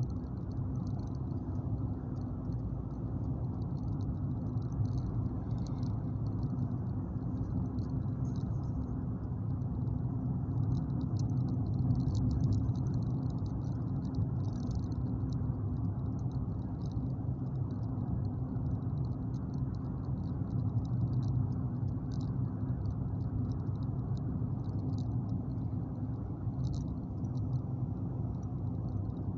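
Car cabin noise while driving: a steady low rumble of engine and tyres, with faint irregular crackling ticks throughout.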